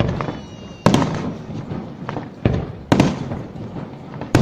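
Fireworks display: aerial shells bursting with loud sharp bangs about every second and a half, each followed by a rumbling echo. A thin whistle sounds before the first bang.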